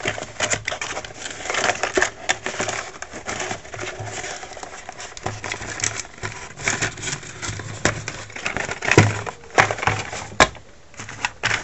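Cardboard box being opened by hand and its contents slid out: irregular rustling, scraping and clicking of cardboard and packaging.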